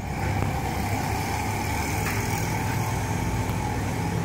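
A steady low mechanical hum under an even background rush, unchanging throughout.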